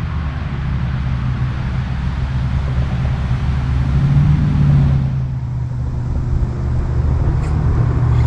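A steady low rumble that swells slightly in the middle and again near the end.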